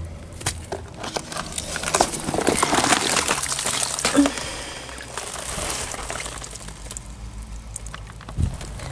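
Water splashing and trickling at the edge of a small garden pond, with crackling and rustling of wet leaves. It is busiest in the first few seconds and dies down after about five seconds.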